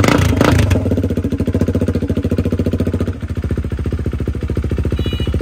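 KTM RC 390 single-cylinder engine idling through an aftermarket exhaust being sound-checked, with steady, even exhaust pulses. A brief rasping burst comes at the start, and about three seconds in the sound turns duller and a little quieter.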